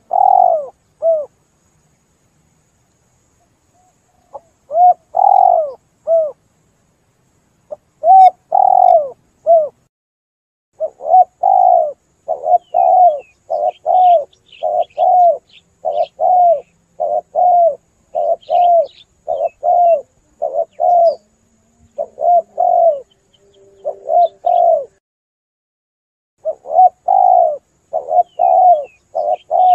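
Spotted dove cooing: short phrases repeated again and again, with pauses of a couple of seconds near the start and again later on, then a steady run of calls. Faint high chirps from a small songbird come through now and then behind them.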